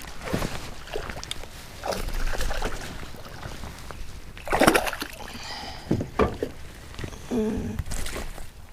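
Water splashing and sloshing around a small fishing boat, broken by several sudden knocks and splashes, the loudest about four and a half seconds in.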